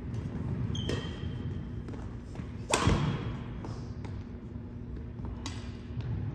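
Badminton rackets striking the shuttlecock in a rally, in a gym hall: three sharp hits, about a second in, near three seconds and near five and a half seconds. The middle hit is the loudest and echoes briefly. A short high squeak follows the first hit, and a steady low hum runs underneath.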